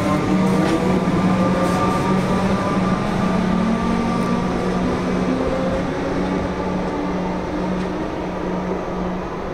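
Melbourne Metro electric suburban trains at the platform: a Siemens train, then a Comeng set pulling in. Their traction motors whine over a steady low hum, with motor tones falling in pitch early on and a faint rising tone later.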